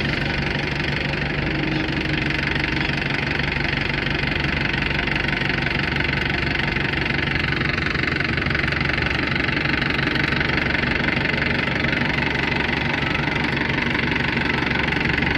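Tractor's diesel engine running steadily at an even speed with a constant knock, no revving.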